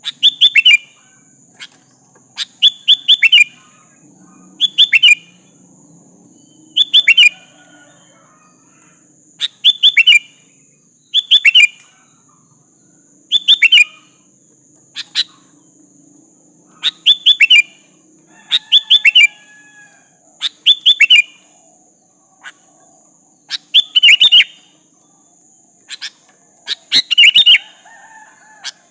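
Sooty-headed bulbul (kutilang) giving short, loud bubbling call phrases, each a quick run of falling notes, repeated about every one to two seconds, over a steady high hiss.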